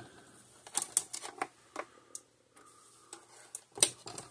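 Gallagher S100 solar fence energizer clicking out its pulses about every 1.3 seconds. Irregular clicks and knocks of a test lead being handled on the energizer performance meter come between the pulses, the loudest sharp click just under four seconds in.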